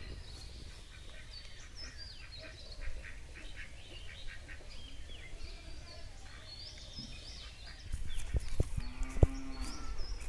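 Small birds chirping on and off. Near the end comes a single drawn-out animal call, under a second long, along with a few dull thumps of footsteps.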